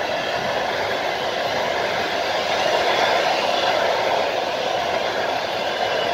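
Long-distance passenger coaches rolling past, their wheels on the rails making a steady rushing noise with no distinct clickety-clack rhythm.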